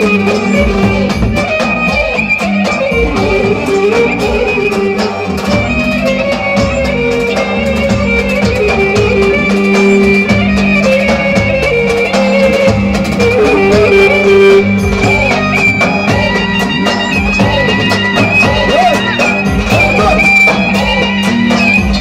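Loud live Turkish Romani dance music (Roman havası): a clarinet plays a winding, ornamented melody over sustained backing tones and a steady drum beat.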